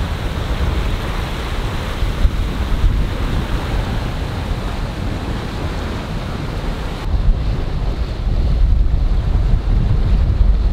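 Rushing water from the bow wave along the hull of a Hanse 418 sailing yacht making about 7 knots, mixed with wind buffeting the microphone. About seven seconds in, the hiss of water fades and a stronger low wind rumble takes over.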